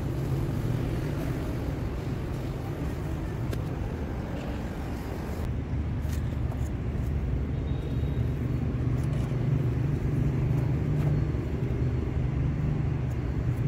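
Steady low rumble of road traffic and engines, with a few faint clicks.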